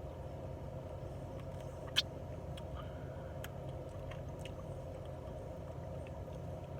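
Quiet chewing of chicken wings, with faint scattered mouth clicks over a steady low hum and one sharp click about two seconds in.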